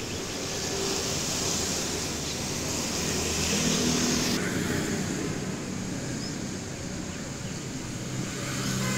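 Steady outdoor background noise with a faint traffic hum. The hiss changes abruptly about four and a half seconds in.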